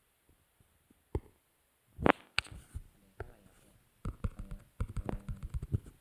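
Typing on a smartphone's on-screen keyboard: a fast run of short taps and clicks, several a second, from about four seconds in, as a password is entered. A single louder knock comes about two seconds in.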